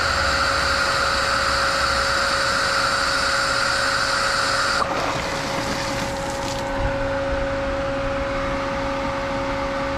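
Air hissing out of a Pentair pool filter's air relief valve over the steady hum of the pool pump running at high speed to prime. The hiss cuts off sharply about five seconds in, leaving only the pump's hum: the air has been bled from the filter tank.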